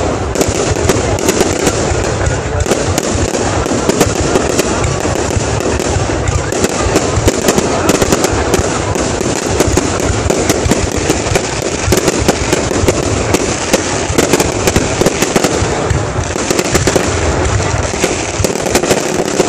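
Aerial fireworks display: shells bursting overhead in a dense, unbroken run of bangs and crackling.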